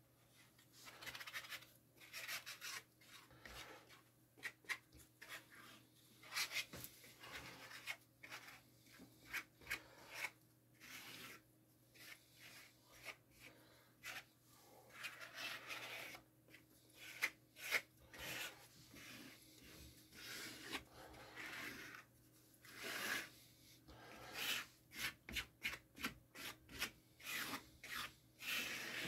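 A small scrap spreader scraping and rubbing wood glue across a fibreboard strip in many short, irregular back-and-forth strokes.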